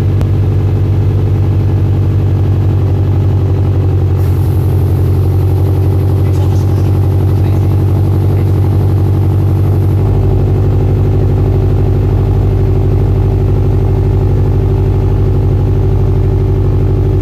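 2013 Subaru WRX STI's turbocharged 2.5-litre flat-four idling through a freshly installed Invidia Q300 cat-back exhaust, with a steady boxer rumble. The low tone shifts slightly about ten seconds in.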